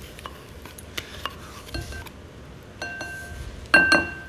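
Utensil scraping and tapping against a small stainless-steel bowl as mustard is scraped out of it, with light clinks. About three and a half seconds in, a loud metallic clink leaves the bowl ringing briefly.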